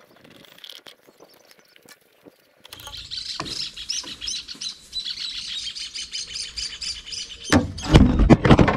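Birds chirping in a dense, rapid run of high chirps, starting abruptly about three seconds in after a few soft clicks. Near the end, loud thumps and rumbling close to the microphone as a PVC pipe is handled.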